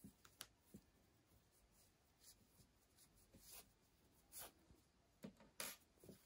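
Near silence broken by a handful of faint, brief rustles and scratches: a yarn tail being worked into crocheted fabric with a tapestry needle.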